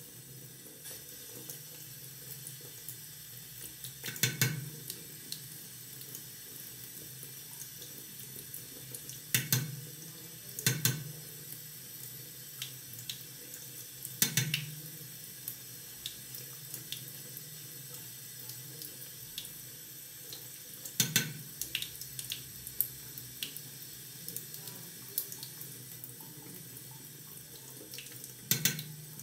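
Tap running steadily into a bathroom sink. Six loud sharp knocks come every few seconds, with fainter clicks in between.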